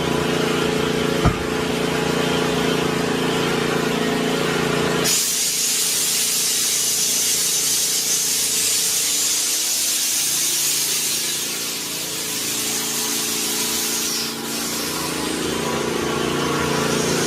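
Compressed air hissing loudly, starting suddenly about five seconds in and stopping about nine seconds later, over a steady engine hum. A single sharp knock about a second in.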